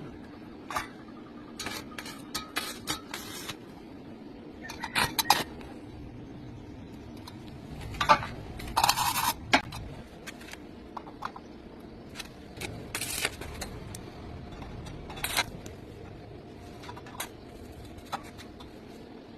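Metal workpieces being handled: irregular clinks, knocks and scrapes of steel, with a denser scraping, clattering run about eight to nine seconds in.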